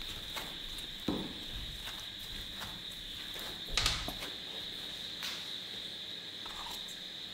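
Parotta dough being kneaded by hand on a granite counter: soft thumps and slaps as the dough is pushed and pressed against the stone, the loudest about a second in and just before four seconds in. A steady high-pitched tone runs underneath.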